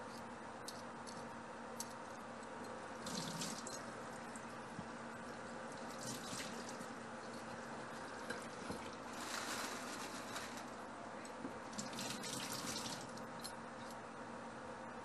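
Water from a kitchen tap running in four short bursts, the longest about a second and a half, over a steady hum and scattered light clicks.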